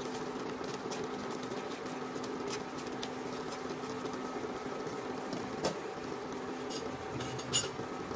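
Crab pieces simmering in coconut milk in a wok, a steady bubbling, stirred with a silicone spoon. Two short clicks of the crab shells knocking, the louder one near the end.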